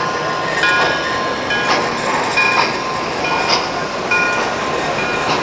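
Standard-gauge tinplate model train rolling past on three-rail track, its wheels clicking over the rail joints roughly once a second, with short high ringing tones between the clicks.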